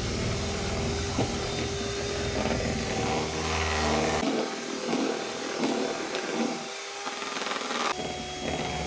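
Handheld electric mixer running, its beaters churning thick fruitcake batter in a bowl. The motor hum is steady, drops out briefly about two-thirds through, and comes back near the end.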